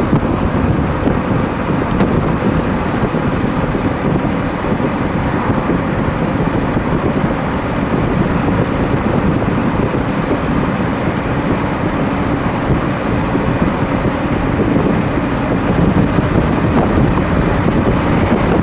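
Steady road noise of a car driving along: tyre and wind noise with a low engine hum.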